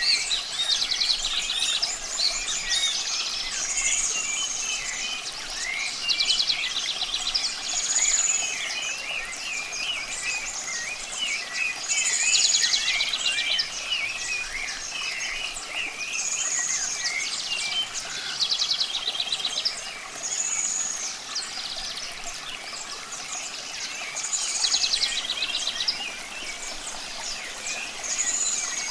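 Several birds singing together. One repeats the same phrase about every four seconds, a high whistled note followed by a rapid trill, among many shorter chirps. Running water makes a steady hiss underneath.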